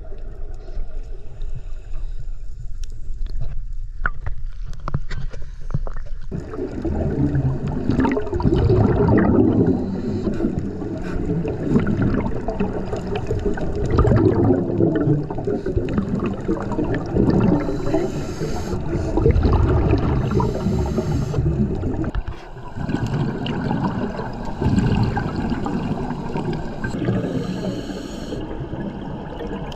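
Scuba diver breathing through a regulator underwater: exhaled bubbles gurgling and rumbling in repeated surges, with a few short hisses of inhaling between them.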